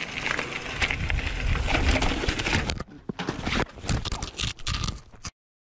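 Hardtail mountain bike rattling and rumbling down a rough, rocky dirt trail. About three seconds in it crashes, and the ride gives way to a broken run of thumps and scrapes as the rider goes over the bars and the camera hits the dirt. The sound cuts off suddenly near the end.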